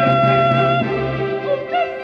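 Mixed choir singing with accompaniment, holding a sustained chord over a steady low note. The phrase tails off near the end.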